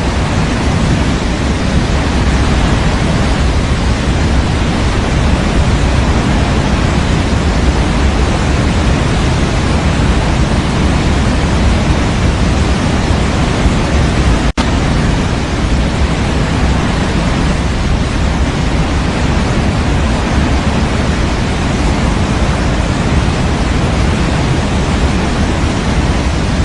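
Steady synthetic white noise of a baby sleep track, weighted toward the low end like pink noise, with a split-second dropout about halfway through.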